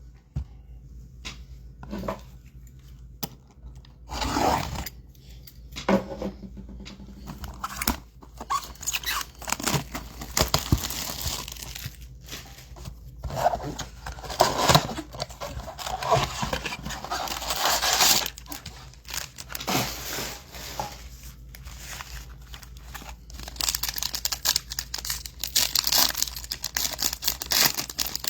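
A cardboard blaster box and its trading-card pack wrappers being torn open and crinkled by hand, in irregular bursts of tearing and rustling.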